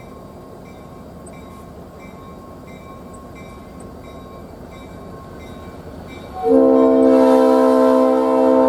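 Low rumble of an approaching diesel train. About six and a half seconds in, RP39-2C 901's multi-chime air horn blows loud and sudden, a chord of several notes held steady.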